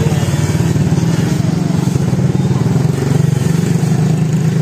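Motorcycle engine running steadily at low revs close by.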